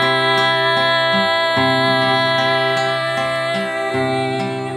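A woman's voice holds one long sung 'ay' over acoustic accompaniment of classical guitar and cello, whose low notes change every second or two beneath it.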